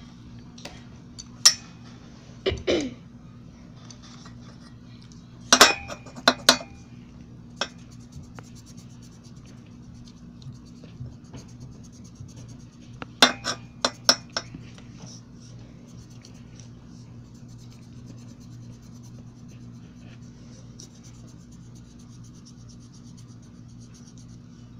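Sharp clinks of hard objects in a few short clusters, over a steady low hum. In the later part, faint scratching of a colored pencil on paper.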